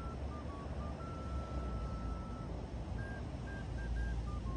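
A string of short electronic beeps at a few different pitches, with one longer held tone about a second in, over a low steady rumble.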